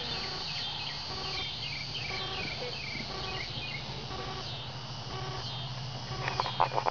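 Evening insect chorus, crickets chirping: a steady high trill with short falling chirps repeating about twice a second, over a low steady hum. A few sharp clicks come near the end.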